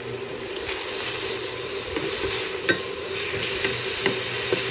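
Shredded boiled chicken sizzling in oil in a stainless steel pan while it is stirred with a spatula. The spatula scrapes and clicks against the pan now and then.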